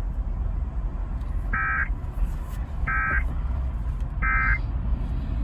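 Emergency Alert System end-of-message data bursts: three short, identical bursts of a harsh two-tone digital squawk about 1.4 seconds apart, marking the end of the broadcast alert. They sound over a steady low rumble.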